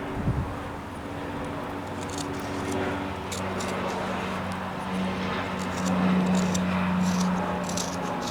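Knife blade shaving a small wooden paddle in short, scratchy cuts, over a steady low hum that grows louder from about five seconds in.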